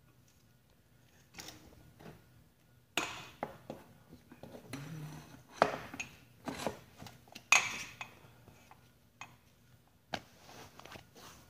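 Irregular metal clinks, knocks and rattles of a mountain bike's fork and front wheel being handled and fitted back into the frame, the loudest knocks near the middle.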